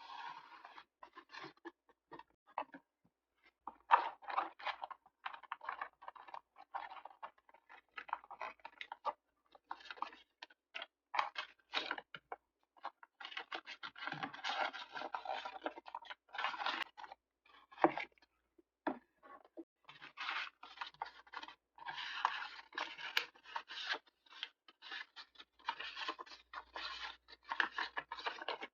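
Paper being handled close up while decorating a journal: scratchy rustling, scraping and crinkling in irregular bursts with short pauses, and a few sharp clicks, the loudest about four seconds in and again near eighteen seconds.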